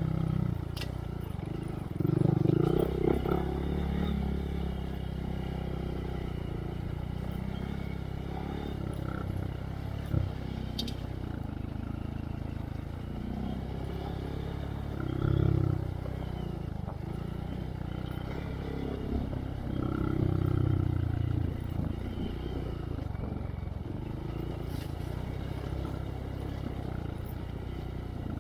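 2023 Honda Monkey's single-cylinder four-stroke engine running through a Yoshimura RS3 exhaust with spark arrestor on a trail ride. It holds a steady note, with louder swells as the throttle opens about two seconds in, again around the middle, and a little later.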